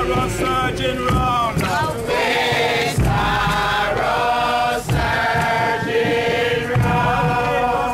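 A crowd of Bobo Shanti Rastafari marchers chanting a song together, many voices in unison with held, sliding notes.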